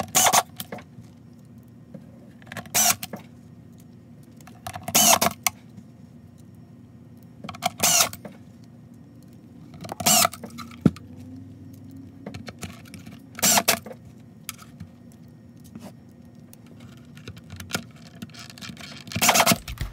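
Power screwdriver whirring in about seven short bursts a few seconds apart, each lasting about half a second, as it drives the screws into the plastic lid of a Dyson DC33 cyclone assembly.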